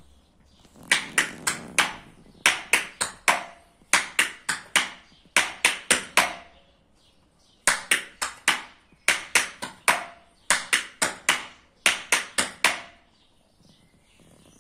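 Tap shoes striking a portable tap board in a single essence step (step front, flap, step) repeated over and over, heard as quick clusters of about four sharp clicks. The taps pause for about a second midway and stop nearly two seconds before the end.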